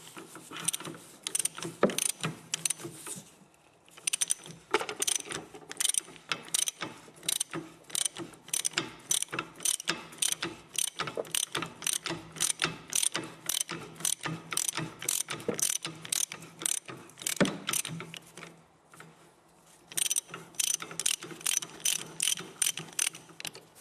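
Socket ratchet clicking as it turns out a bolt with a 13 mm socket: runs of rapid clicks, about three a second, with two short pauses.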